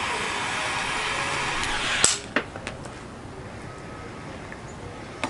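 Butane torch lighter hissing while a cigar is lit, cut off by a sharp click about two seconds in, followed by a few lighter clicks.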